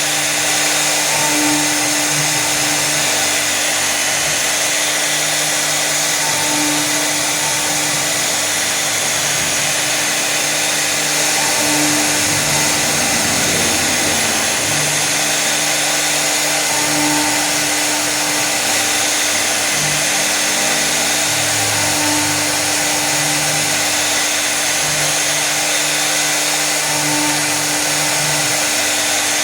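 Woodstar 1325 CNC router's spindle motor running steadily, with a hum that swells in a repeating pattern about every five seconds.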